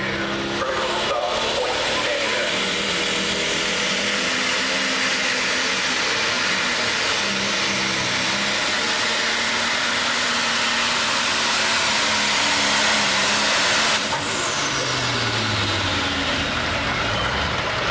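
Turbocharged diesel pulling tractor running at full throttle while hauling a weight-transfer sled, with a high turbo whistle that climbs in the first two seconds and then holds. About fourteen seconds in the throttle comes off, and the engine and whistle wind down.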